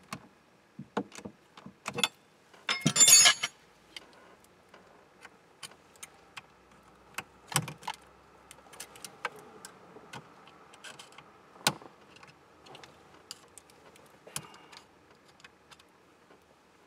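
Scattered sharp metallic clicks and small rattles of hand tools working on a steering column's lock plate and lock ring, with one louder jangling rattle about three seconds in.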